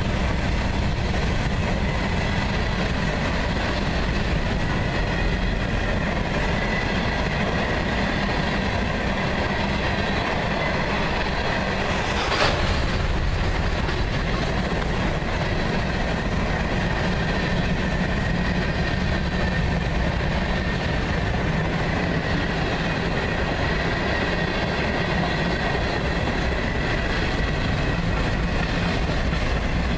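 Freight cars of a CSX manifest train (covered hoppers, boxcars and tank cars) rolling past: a steady rumble of steel wheels on the rails, with a faint high whine at times and one sharp clank near the middle.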